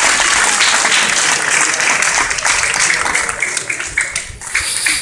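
Applause: dense clapping at first, thinning to scattered separate claps and dying away near the end.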